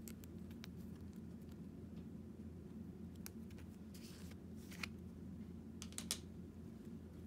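A plastic slime jar being handled and its plastic screw-top lid twisted off: scattered faint clicks and taps, a brief scrape of the lid about four seconds in, and a couple of sharper clicks about six seconds in, over a low steady hum.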